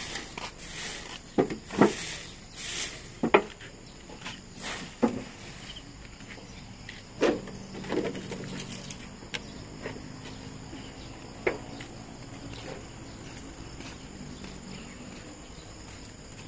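A broom and dustpan scooping dry leaves, with several sharp knocks and rustles in the first half as the dustpan is worked and emptied into a plastic basin. Insects chirp steadily in the background throughout.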